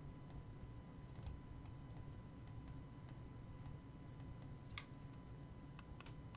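Computer mouse clicking: faint, irregular clicks, with a louder one about five seconds in and a few quick ones near the end.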